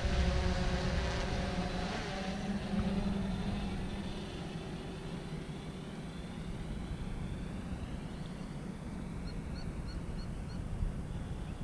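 Small quadcopter drone's propellers buzzing steadily, fading as the drone flies away.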